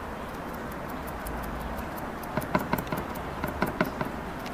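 A paint sponge dabbing pearl acrylic onto a foil-covered wooden board, giving light, irregular taps, over a low steady hum.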